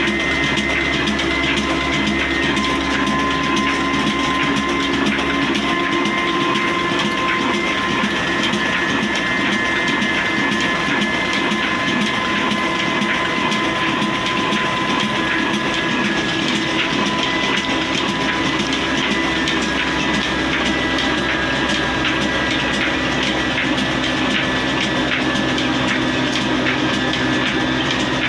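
A 26 hp 'Kala' horizontal diesel engine with a large flywheel running steadily under belt drive. It makes a continuous dense mechanical clatter, with a thin steady whine, from the engine and its belt, pulleys and line shaft.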